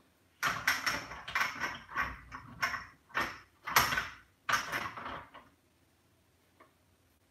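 A knife spreading butter on bread slices: a quick run of about ten short scraping strokes, which stop about five seconds in.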